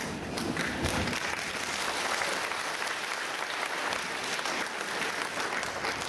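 Congregation applauding: many hands clapping in a dense, even wash that swells within the first second and holds steady.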